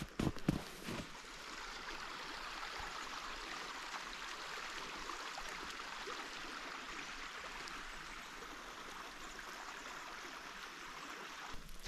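Steady rush of a creek's running water. A few footsteps sound in the first second.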